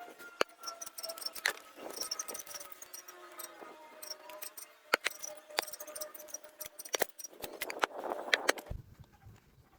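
Irregular small clicks and light metallic clinks of parts and tools being handled at a workbench, with a faint thin tone that slowly falls in pitch over the first few seconds. Near the end the clicking stops abruptly and a low rumble takes over.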